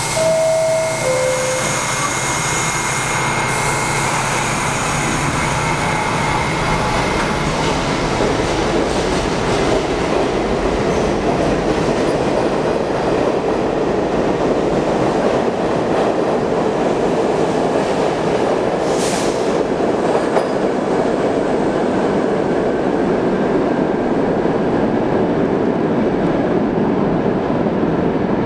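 R68 New York City subway train: a hiss and a two-tone descending door chime as the doors close, then the train pulling out of the station. A steady rumble and clatter of wheels on the rails follows as the cars roll past.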